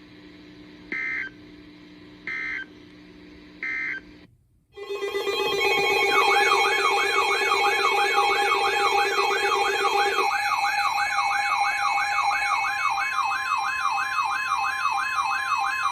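Emergency Alert System end-of-message code: three short bursts of data tone. After a brief gap comes a loud electronic alert sound of several steady tones layered with a fast up-and-down warbling siren tone, about two and a half sweeps a second. It marks the start of the next alert.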